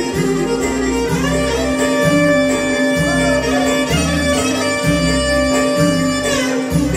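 Live Albanian folk band playing a Përmet dance tune (valle përmetare): a clarinet holds one long note from about a second in until near the end, over a steady pulsing bass beat.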